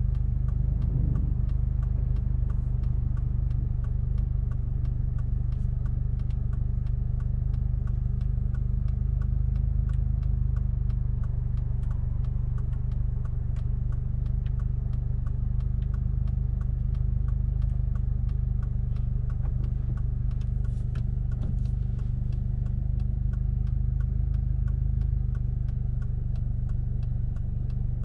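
Alfa Romeo 159 1.8 TBi turbocharged four-cylinder with a full custom exhaust idling steadily, heard from inside the cabin. A light ticking repeats at an even pace over the idle.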